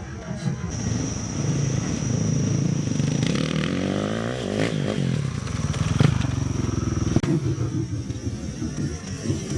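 Motocross dirt bike engines revving as they race along the track, the pitch repeatedly climbing and dropping, with several engines overlapping around the middle. A sharp click about six seconds in.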